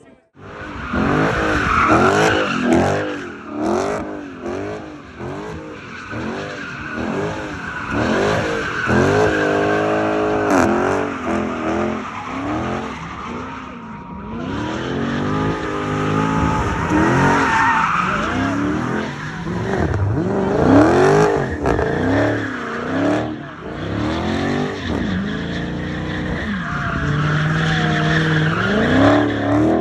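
Muscle car doing donuts: its engine is revved up and down over and over in quick rises and falls, while the rear tyres squeal and screech against the pavement.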